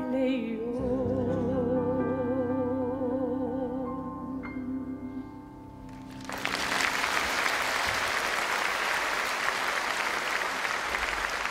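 A woman singing a long held final note with wide vibrato over grand piano chords; the note and chords die away about five seconds in. About six seconds in the theatre audience breaks into applause, which keeps going.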